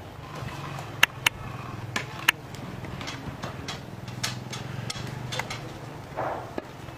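Movement sounds of barefoot dancers on grass and stone steps: four sharp knocks or slaps in the first half, then quieter taps and scuffs. A steady low hum runs underneath.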